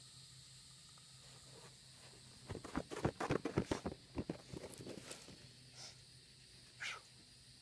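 Quick, irregular footfalls and rustling on grass for a couple of seconds, starting about two and a half seconds in. Near the end there is one short sound that slides downward in pitch.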